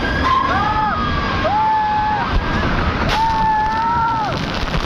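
Several riders on a fast amusement ride screaming in long, held, overlapping screams, over a steady rush of wind and the rumble of the ride.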